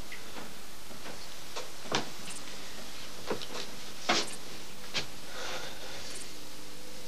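A handful of sharp clicks and knocks over a steady hiss. The loudest come about two seconds and four seconds in, with lighter ones between and about five seconds in.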